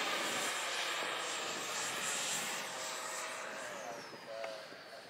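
XFly T-7A Red Hawk 64mm electric ducted fan model jet in flight: a steady rushing whine with a high tone. Near the end the whine drops in pitch and fades.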